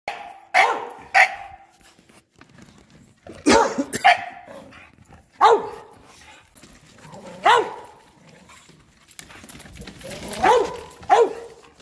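Bulldogs barking in loud single barks spaced a second or two apart, about eight in all, some coming in quick pairs.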